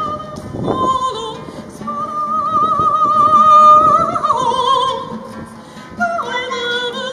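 A woman singing with a wide vibrato to her own strummed acoustic guitar, holding one long high note in the middle, which is the loudest part, before her voice drops lower.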